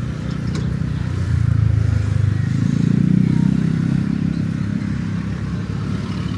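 Engine of a passing motor vehicle: it grows louder about a second in and rises in pitch, peaks around three seconds in, then fades. A steady lower engine hum runs beneath it.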